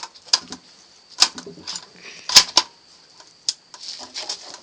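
A string of sharp clicks and knocks at irregular intervals, the loudest a quick pair about two and a half seconds in, over a steady high hiss.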